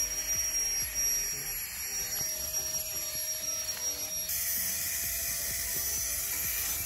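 Flextail Tiny Pump 2X, a small battery-powered electric air pump, running with a steady high-pitched whine as it blows air into an inflatable sleeping mattress. About four seconds in, its pitch rises slightly and it gets louder.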